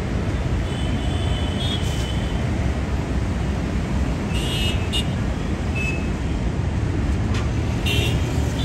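Boeing 747-8 freighter's four GEnx-2B turbofans running with a steady low rumble. Several brief high-pitched toots sound over it: about a second and a half in, around four to five seconds in, and near the end.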